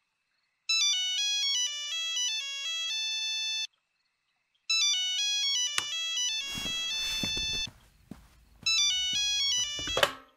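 Cordless home phone ringing with a melodic electronic ringtone, three rings of quick stepping notes. A sharp click and a rush of noise come in during the second ring. The third ring cuts off with a click as the handset is picked up.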